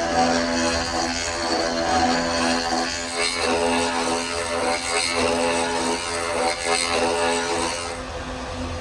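A woodworking power tool's electric motor running steadily with a pitched hum over a hiss. The hiss grows stronger about three seconds in and eases near the end.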